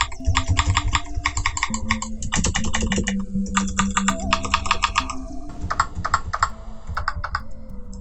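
Fast typing on a keyboard, with each keypress giving the click of a mechanical key switch played back by the Mechvibes keyboard-sound software. The keystrokes come in quick runs with short breaks and slow down in the last couple of seconds.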